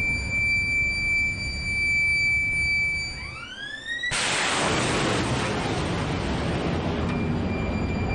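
Phalanx CIWS 20 mm Gatling gun (M61A1) firing one long burst, a dense ripping noise that starts suddenly about halfway through and tails off over about three seconds. A short rising whine comes just before it.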